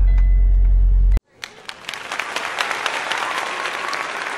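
A truck engine runs as a low steady rumble inside the Kenworth's cab, then cuts off abruptly about a second in. After a brief gap, applause of many hands clapping starts and continues.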